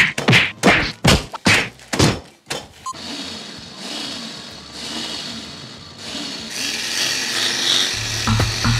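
A fist pounding a bag of chips on a wooden board, about six heavy thuds in the first two seconds, crushing the chips into crumbs. A hiss follows and builds, and background music with a beat comes in near the end.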